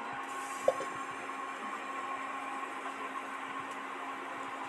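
Steady hiss of a lit gas-stove burner heating a clay pitha mould, with a steady low hum beneath it and one light knock about a second in.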